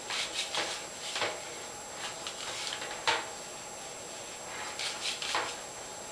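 Flat iron worked down a section of hair: irregular short clicks and scrapes as the plates clamp, twist and slide, with hair rustling against them.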